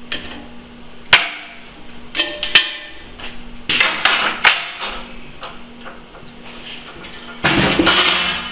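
Sharp metal clanks and knocks as the steel tubing and plasma torch are handled and set in place, then about seven and a half seconds in a plasma cutter starts cutting the steel with a sudden loud, steady hiss.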